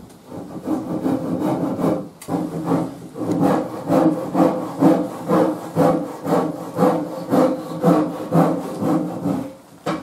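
A hand tool rubbing along a wooden shelf board in quick, even back-and-forth strokes, about two a second, as the board is finished by hand.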